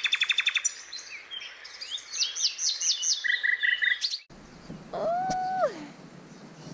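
Birds singing and calling: a fast run of repeated notes, then varied chirps and trills. About four seconds in the sound changes abruptly and a single drawn-out call follows, holding its pitch and then falling away.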